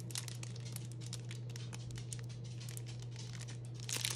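Plastic wrapping crinkling in short crackles as a bundle of bagged diamond-painting drills is handled, with a louder rustle near the end as it is moved and set down.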